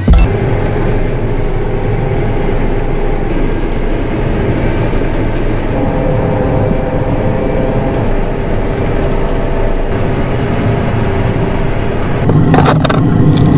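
John Deere 9500 combine running steadily while harvesting, heard from inside the cab: a constant diesel engine and machinery drone. About twelve seconds in it grows louder and deeper, with a few sharp clicks.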